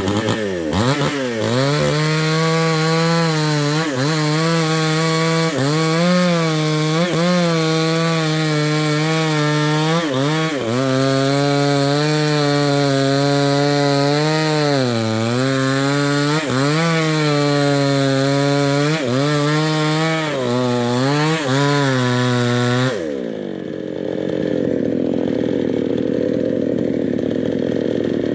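New West 628 two-stroke chainsaw with a 24-inch bar revving up and cutting into a thick sengon trunk at full throttle. The engine pitch sags again and again as the chain bogs under load in the wood. About 23 seconds in, the throttle is let off and the saw falls back to idle.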